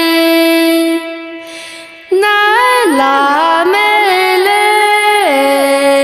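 A woman singing a Miao folk song solo. A long held note fades out about a second in; after a short gap a new phrase starts, with ornamented turns between notes, and settles on a long held lower note near the end.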